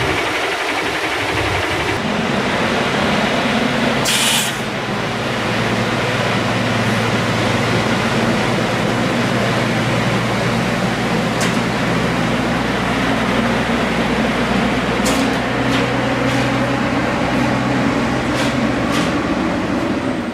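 Heavy truck's diesel engine running steadily with a deep, even hum. A brief hiss comes about four seconds in, and a few sharp ticks come in the second half.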